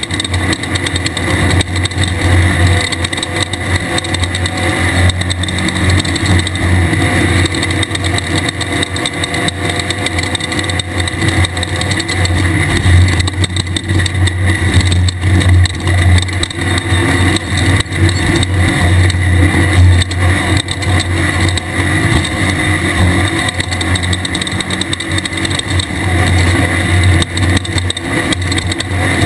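A 1600-class off-road race car's air-cooled VW engine running steadily under load at speed, with a strong low drone and a constant rushing noise above it.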